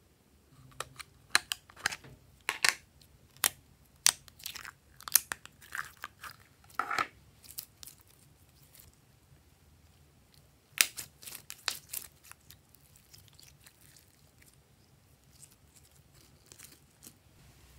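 Sharp clicks and sticky crackling as a small plastic slime container is handled and glitter-covered slime is pulled and pressed out of it by hand. The sounds come in two clusters, the second a few seconds after the first, and fade to faint crackles near the end.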